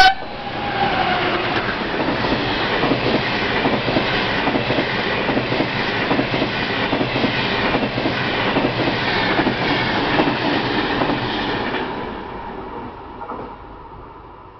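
An electric-hauled long-distance passenger train passes close at speed. The locomotive's horn blast cuts off right at the start. A long run of coaches then rolls by with a rhythmic clatter of wheels over the rails, and the sound fades away over the last couple of seconds as the train recedes.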